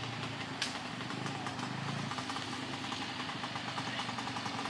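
Small motorcycle engines running at low revs with a steady putter, and one brief click about half a second in.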